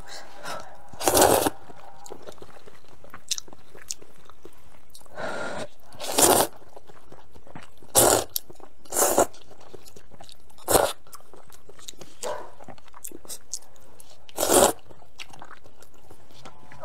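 A person slurping instant rice noodles in broth from a cup, in short loud slurps spaced a second or more apart, with quieter chewing in between.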